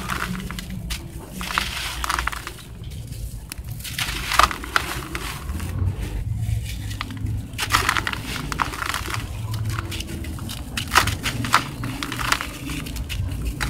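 Hands crushing and crumbling dusty sand-and-cement balls: repeated gritty crunches at an uneven pace.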